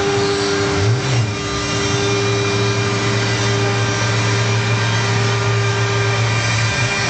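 CNC router spindle running steadily as its bit carves a relief pattern into a wooden door panel: a steady motor whine with hum over the rasp of the cutting. The low hum wavers briefly about a second in and again near the end.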